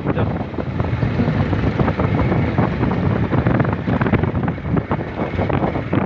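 Heavy wind buffeting the microphone while riding on a motorbike, with the motorcycle's engine running underneath. The rumble is loud and steady with a constant flutter.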